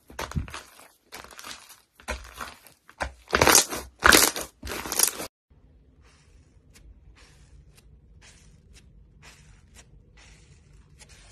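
Thick white slime with small beads mixed in being squished and stretched by hand, giving dense crackly, crunchy popping that is loudest three to four seconds in. About five seconds in it cuts off to faint, scattered crisp clicks as a spoon presses dents into a blue porous block.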